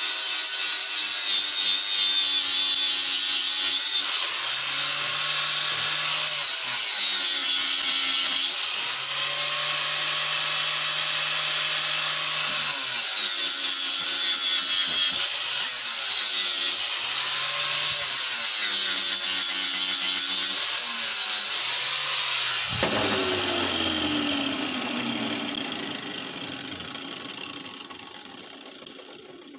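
Angle grinder with a large disc grinding a steel axe head: a loud, steady high whine whose pitch sags again and again as the disc is pressed into the metal and picks back up as pressure eases. About three-quarters of the way through it turns suddenly rougher with a falling tone, then winds down and dies away near the end.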